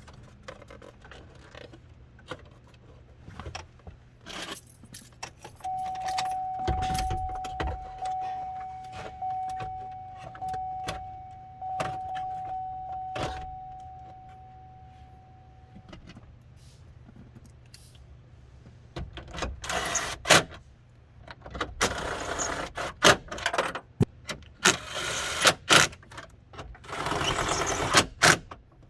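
Hands working a GM truck's plastic dash trim and gauge cluster back into place: a run of clicks, knocks and plastic rattles, busier and louder in the second half. A steady high tone sounds for about ten seconds in the middle.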